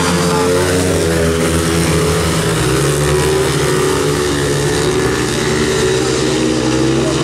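Speedway motorcycles, 500 cc single-cylinder methanol-fuelled engines, racing around a dirt track. Several engines are heard at once, running loud and steady at race speed.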